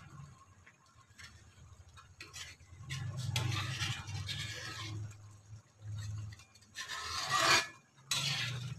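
Metal spoon scraping and stirring through thick boiling chocolate rice porridge in an aluminium pan, in several long strokes, the loudest about seven seconds in.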